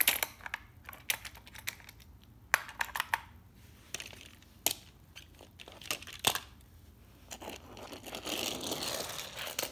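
Small die-cast toy cars handled by hand on a wooden floor and plastic track pieces: scattered clicks and taps as they are picked up and set down. Near the end comes a longer scraping rush as a toy car is pushed along the floorboards.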